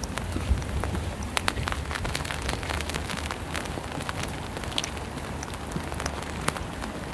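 Rain falling, with many irregular sharp ticks of drops striking close by over a steady hiss and a low rumble.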